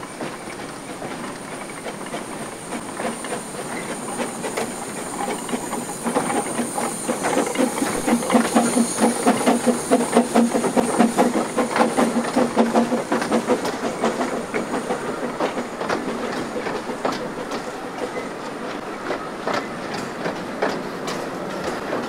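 Narrow-gauge Hunslet quarry saddle-tank steam locomotive approaching and passing with its train, its exhaust beats growing louder to a peak partway through along with a steam hiss. As the carriages roll by the wheels clatter over the rail joints.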